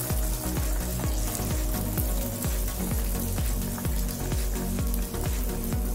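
Hot oil in a frying pan sizzling and crackling steadily around fried bread rolls held just above it in a wire strainer to drain.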